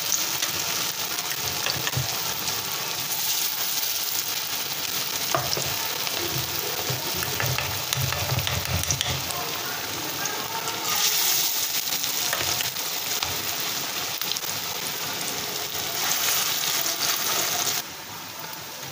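Yellow split-pea fritters deep-frying in hot oil in a wok, a steady dense sizzle that turns quieter shortly before the end.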